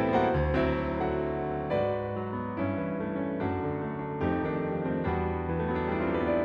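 Garritan CFX virtual piano, a sampled Yamaha CFX concert grand, playing a slow piano arrangement: chords with a melody over them, a new chord struck about every second and left ringing.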